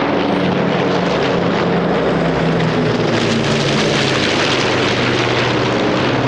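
Aircraft flying over with a steady engine drone. The hiss grows brighter in the middle of the pass, and the engine's pitch drops toward the end.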